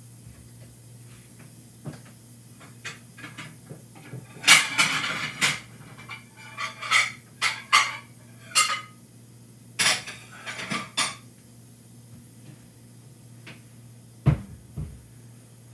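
Ceramic plates clattering and clinking in a kitchen cupboard as one is lifted off a stack, in a run of sharp knocks and clinks over several seconds. Near the end, a single thud as the cupboard door is shut.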